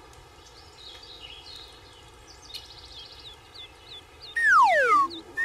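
Cartoon sound effects over a steady outdoor background with small birds chirping. About four seconds in comes a loud falling whistle-like glide, and near the end a rising one, as for a yo-yo dropping and climbing back up.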